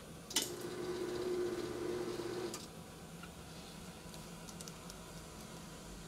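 Seal bar of an L-bar shrink sealer clacking down onto polyolefin shrink film, then a steady buzz for about two seconds while the seal is made, cutting off suddenly. A steady low machine hum from the shrink system runs underneath.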